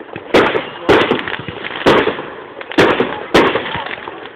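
Fireworks going off: five sharp bangs at uneven intervals, spaced roughly half a second to a second apart.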